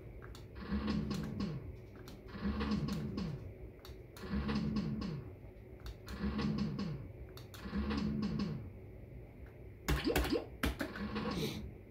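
Maygay Great Escape fruit machine playing a short electronic sound cue with falling tones, repeated about every two seconds, six times. Near the end come a few sharp clicks from its buttons being pressed.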